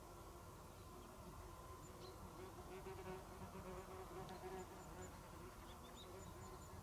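A flying insect buzzing faintly, its hum wavering and swelling around the middle, with faint high chirps in the background.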